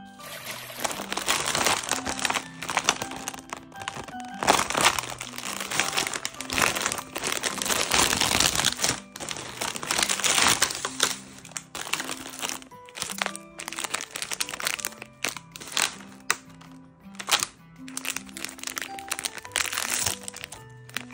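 Plastic and foil snack wrappers crinkling and rustling as hands handle a bag of individually wrapped oat cookies and open the packets. The rustling comes in dense stretches with sharp crackles and is busiest in the first half.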